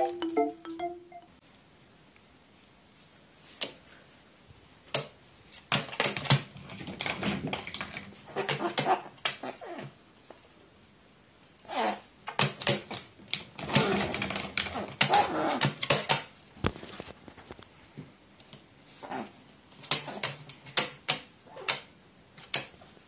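A crow flapping its wings in quick rustling bursts and giving short, rough gurgling begging calls, in three spells.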